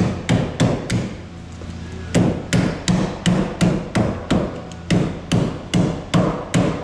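Hammer blows on a sheet-metal camper siding piece, bending a flange. A few strikes, a short pause, then a steady run of about two to three blows a second, over a steady low hum.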